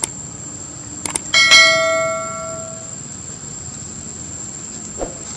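Mouse-click and notification-bell sound effects from a subscribe-button animation: sharp clicks, then a bright chime about a second and a half in that rings out over about a second and a half. A steady high-pitched whine runs underneath, and a short knock comes near the end.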